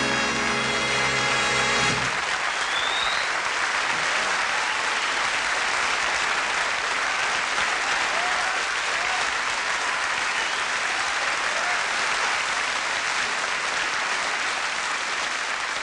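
Studio audience applauding steadily, with the band's music ending about two seconds in.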